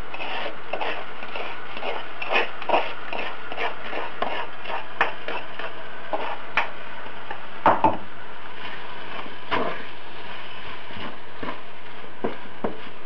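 A wooden spoon scrapes a fried garlic and bread paste out of a wooden mortar into a frying pan and stirs it through the vegetables, making irregular wooden knocks and scrapes against the mortar and pan. There is a sharper double knock about eight seconds in.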